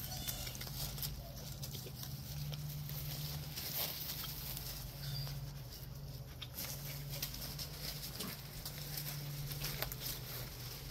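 Light footsteps and rustling in grass and dry leaves: scattered soft crackles over a steady low hum.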